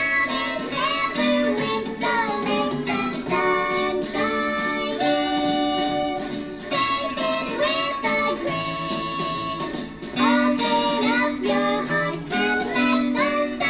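A recorded pop song playing: singing over guitar and backing instruments.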